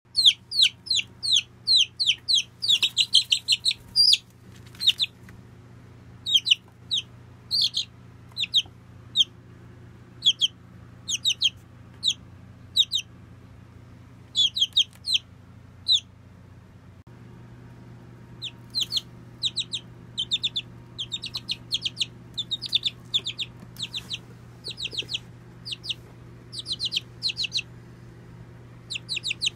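A month-old Dark Cornish chick peeping: short, high calls that fall in pitch, given in quick runs with brief pauses between them. A steady low hum runs underneath.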